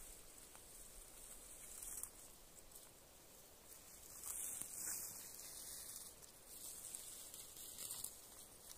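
Faint rustling of blueberry shrubs as a handheld berry-picking scoop is combed through them, swelling in a few short bursts.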